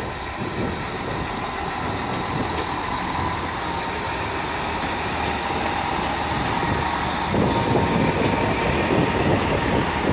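A GWR Turbo diesel multiple unit running past at close range: the diesel engines and wheels on the rails, with a faint steady whine. It grows louder about seven seconds in as the carriages come level.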